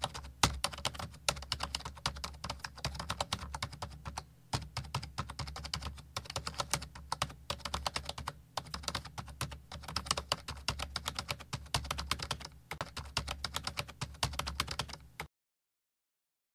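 Computer keyboard typing: a rapid run of key clicks with a few short breaks, stopping about a second before the end.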